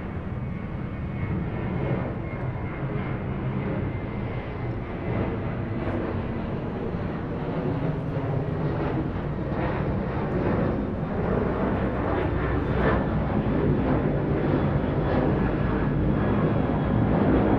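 Airplane engine running steadily, growing somewhat louder toward the end.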